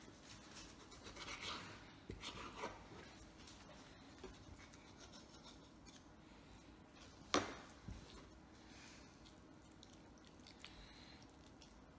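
Faint scraping and rubbing of a knife trimming raw chicken on a plastic cutting board, with one sharp knock about seven seconds in.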